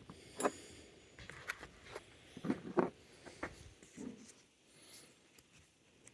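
Steel spanners being handled: a series of light knocks and clicks as they are picked up and put down, loudest about halfway through.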